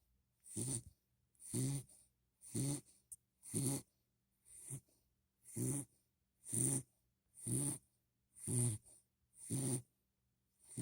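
A sleeping puppy snoring, a short snore about once a second in an even rhythm.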